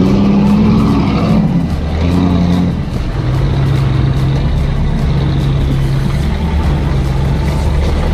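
Off-road 4x4 engine revving under load for a second or so, then running steadily at a lower pitch.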